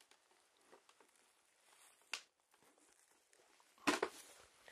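Mostly quiet room with handling noise: a sharp click about two seconds in and a louder short knock with a brief rustle near the end.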